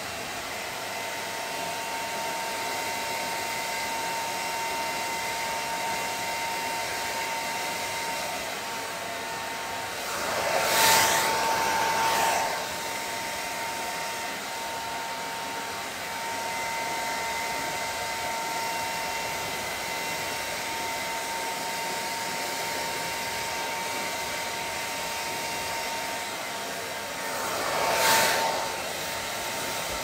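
Hand-held hair dryer running steadily with a thin whine over its rush of air, surging louder twice, about ten seconds in and again near the end.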